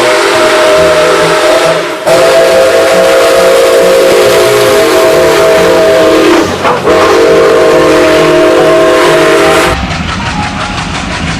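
Steam locomotive whistle blowing in long, loud blasts over hissing steam, each blast a steady chord, with short breaks about two seconds in and again about six and a half seconds in. Near the end the whistle stops and a quieter, rhythmic rumbling of a train running takes over.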